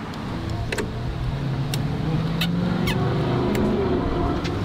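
A motor vehicle's engine running close by, its hum swelling through the middle, with several light clicks and taps.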